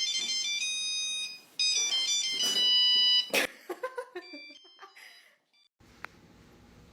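An electronic jingle: quick high beeping notes like a ringtone, then a sharp click and a run of notes stepping down in pitch that stops about five seconds in. A single click follows about a second later.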